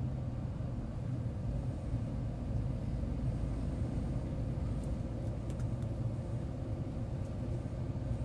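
Cab noise of a semi-truck cruising on a highway: the engine and tyres on the road make a steady, low sound.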